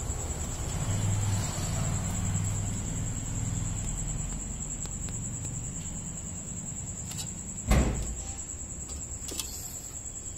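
Outdoor background noise: a steady high-pitched whine over a low rumble, with a single sharp thump about three quarters of the way through and a few faint clicks.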